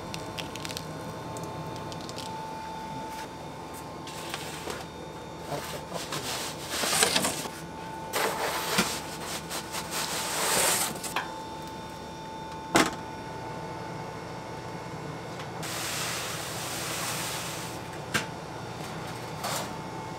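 Baking-kitchen handling sounds over a steady thin whine: several scraping, sliding bursts as a wooden peel loaded with pretzel dough is slid into a deck oven, and one sharp knock about two-thirds of the way through.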